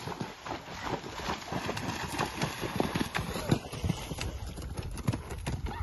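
Horses' hooves cantering, first splashing through a shallow water jump, then striking firm ground a few seconds in.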